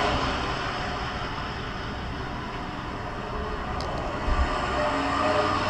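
A road vehicle's rushing noise from a film soundtrack, heard through cinema speakers as a car goes past, with a brief low thump a little past halfway.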